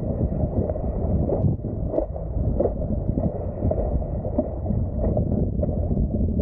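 Wind buffeting the microphone over water rushing and splashing against a wingfoil board moving across choppy water: a dense low rush whose loudness gusts up and down.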